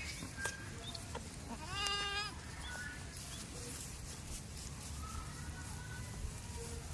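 A goat bleats once, a short wavering call about two seconds in, over a steady low background hum.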